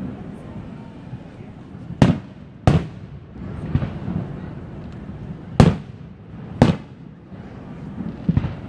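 Aerial fireworks exploding: four loud, sharp bangs, two close together about two seconds in and two more a little past halfway, with fainter bangs between them, over a steady low rumble.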